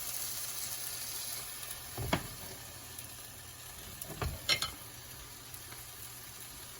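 Shrimp sizzling in hot oil in a frying pan. A utensil knocks against the pan about two seconds in, and again a couple of times around four seconds in.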